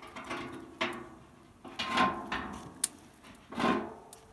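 Steel rods scraping metal on metal as they are slid through the holes in the wall of a steel drum smoker, in several separate strokes, some with a faint ring, and one sharp click.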